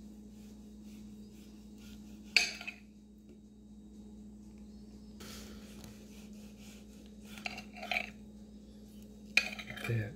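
Kitchen knife slicing through a ripe tomato on a ceramic plate, the blade clicking and scraping against the plate several times: a sharp click about two seconds in, more near eight seconds and near the end.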